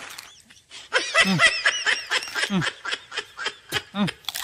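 A run of short, high-pitched laughs, about three a second, with a couple of sharp clicks near the end.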